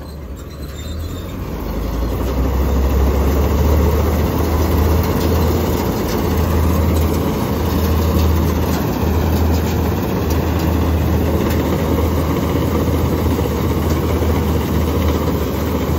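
Combine harvester's diesel engine running close by, a steady heavy rumble that grows louder over the first two seconds and then holds level.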